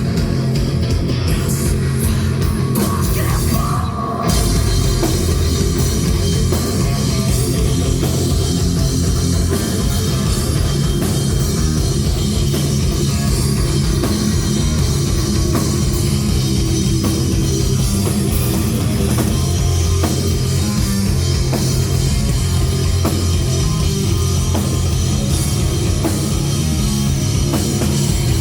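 Alternative metal band playing live, an instrumental stretch of guitars and drum kit with no singing. About four seconds in there is a brief break, then the full band comes back in.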